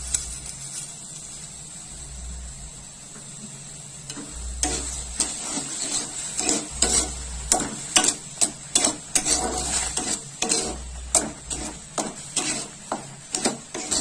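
Steel spatula stirring thick boiling mango pulp and sugar in a cooking pan, scraping and knocking against the pan about twice a second from about four seconds in, over a steady hiss of the mixture bubbling on the heat.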